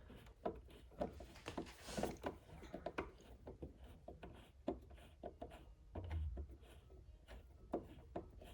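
Faint clicks and scrapes of a screwdriver working at a screw in a portable radio's plastic back cover, with the case being handled, and a soft low bump about six seconds in.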